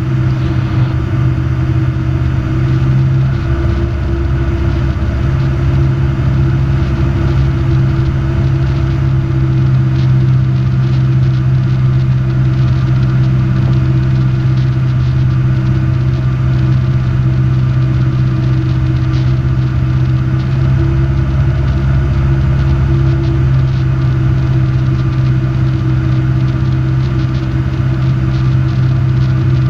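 Robin DR400 light aircraft's piston engine and propeller droning steadily in flight, heard inside the cockpit.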